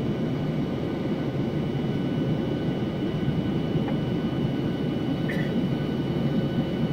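Steady roar of an airliner's turbofan engine and airflow heard inside the cabin from a window seat beside the engine, climbing after takeoff, with a thin steady whine above the rumble. A faint click about five seconds in.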